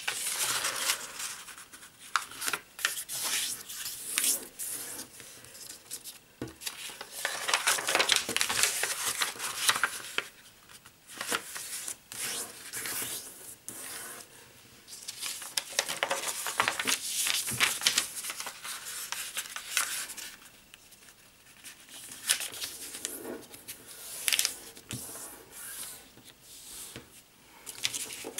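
A sheet of paper being folded by hand, with crisp rustling and rubbing as creases are pressed and smoothed flat, in bursts every few seconds with short pauses between folds.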